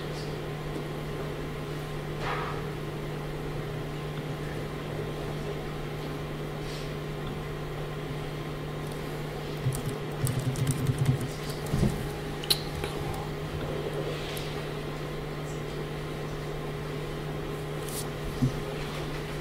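Steady low hum of room tone, such as ventilation or a fan. A cluster of short knocks and clicks comes about ten to twelve seconds in, and one more click comes near the end.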